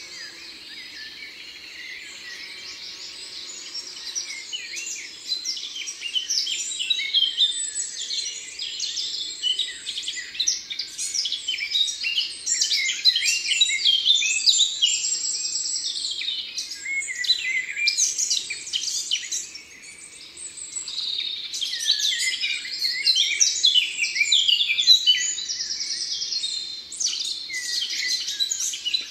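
Many small birds chirping and calling at once, a dense overlapping chatter of short chirps and trills that grows louder after about five seconds and dips briefly around twenty seconds in.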